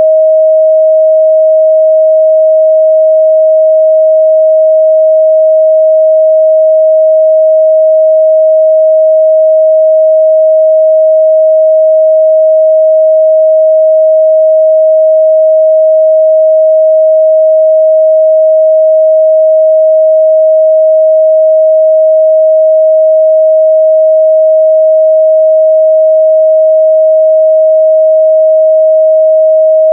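Continuous 631 Hz sine-wave test tone: one pure, steady midrange pitch held without change.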